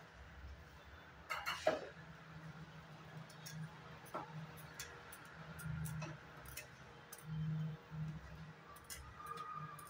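Steel ladle clinking and scraping against a steel pot while stirring milk with vermicelli, in scattered light knocks, with one louder scrape about a second and a half in.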